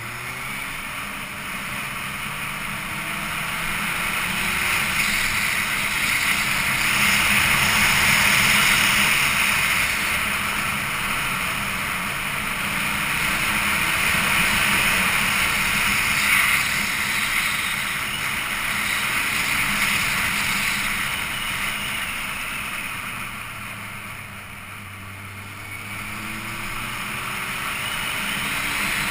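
Motorcycle engine running as the bike rides along, under a strong rush of wind over the microphone that swells and fades with speed and eases off a few seconds before the end.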